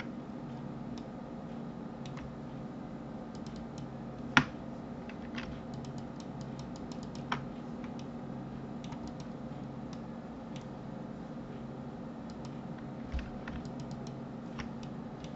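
Scattered clicks of a computer mouse and keyboard, with one sharper click about four seconds in, over a steady low hum.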